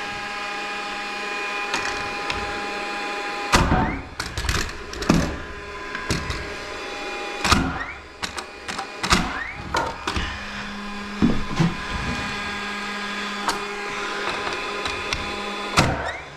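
Pneumatic framing nail gun firing a series of nails into 2x4 studs and plates, about a dozen sharp shots at irregular spacing, over the steady hum of a running air compressor.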